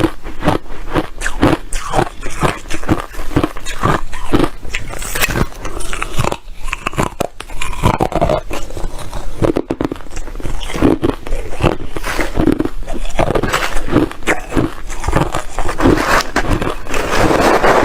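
Someone biting and chewing ice chips: a continuous run of sharp, irregular crunches.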